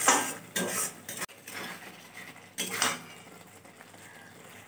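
A metal spatula scrapes and stirs thick masala around a metal kadai, with several scrapes against the pan in the first three seconds, then quieter. The masala is being fried down until its oil separates.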